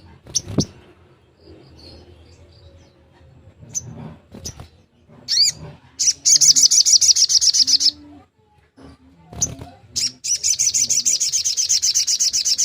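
A little spiderhunter (sogon) singing: a few sharp single calls and a sweeping note, then a fast trill of high notes, about ten a second, for two seconds. A second long trill starts about ten seconds in.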